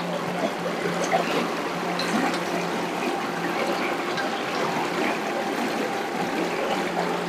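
Steady trickling and swishing of water as sediment is washed in a gold pan, the repeated washing that carries off the light material so the fine heavy particles stay at the bottom of the pan.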